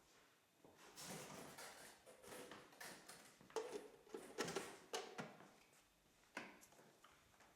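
Quiet handling noise: a scattering of soft knocks, clicks and rustles, with the firmest knocks a little past the middle.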